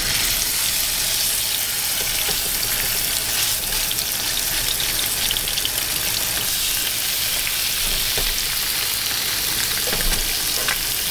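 Skinless trout fillet sizzling steadily in hot oil in a frying pan.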